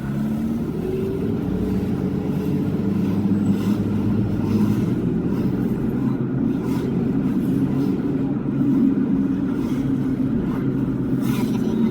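Toyota Hilux engine and drivetrain heard from inside the cabin, pulling away and then running at a steady cruise with an even low drone.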